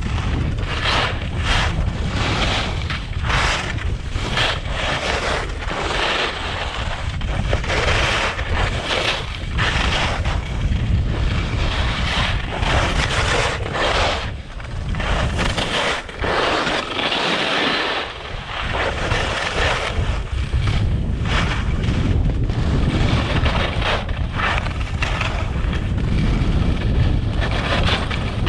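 Wind buffeting a skier's camera microphone, a constant low rumble, over the hiss and scrape of skis sliding on packed snow that swells and fades every second or two.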